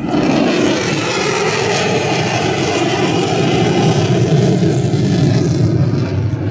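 Airplane engine noise at an air show, loud and steady, with a low rumble that grows stronger about halfway through.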